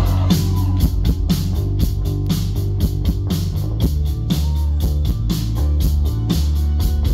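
Live rock band playing an instrumental passage: guitars over bass and drums keeping a steady beat.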